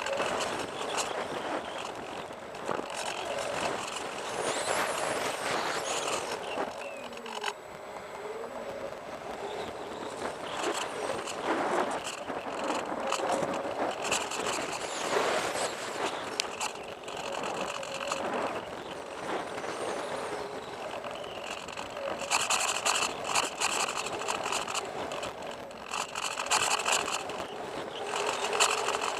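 Bixler RC plane in flight, heard from its onboard camera: wind rush over the airframe, with the electric motor's drone drifting up and down in pitch as the throttle changes. The noise swells and fades several times.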